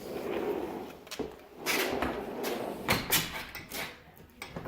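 A door being moved and shut: a scraping slide, then a few sharp knocks and clicks.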